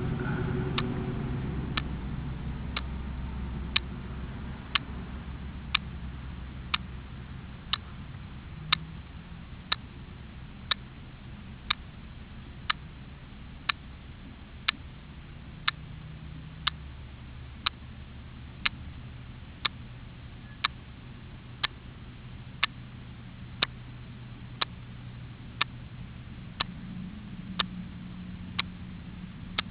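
A sharp tick repeating steadily about once a second. A low vehicle rumble fades away during the first few seconds.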